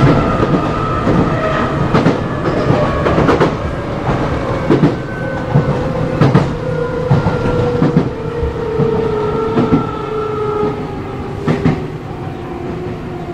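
Nankai 6000 series electric train running, heard from a resistance-controlled motor car with Mitsubishi traction motors: a steady motor whine that slowly falls in pitch over the second half as the train slows, with the wheels clacking irregularly over rail joints.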